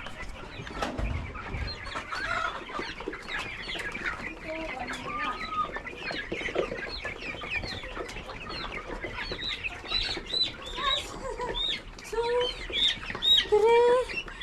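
A flock of young commercial layer hens clucking and calling, with many short calls overlapping. The calls grow louder and clearer near the end.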